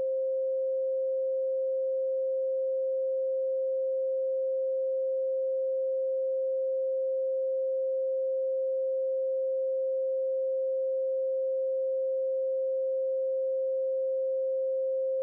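A pure 528 Hz sine tone, held at one pitch and one level.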